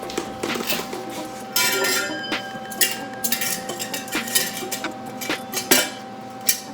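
Metal parts and tools clinking and clanking irregularly, with two short hissing spells about one and a half and three and a half seconds in.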